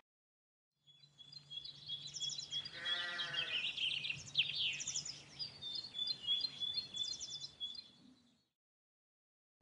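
Rural outdoor ambience: high chirps and fast trills run throughout, with a faint low hum underneath, and a single livestock bleat about three seconds in. It fades in after about a second of silence and cuts off about a second and a half before the end.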